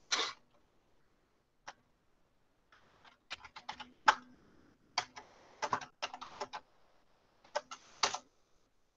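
Typing on a computer keyboard: a couple of single key clicks, then quick runs of keystrokes from about three seconds in.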